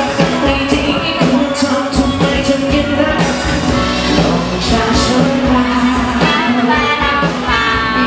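Thai pop song performed live by a male singer with a band of electric guitar, trumpet and saxophone, played loud and without a break.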